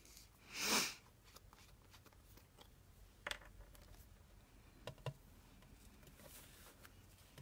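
Quiet desk handling during paper-craft work: a brief soft rustle about half a second in, then a few light clicks and taps.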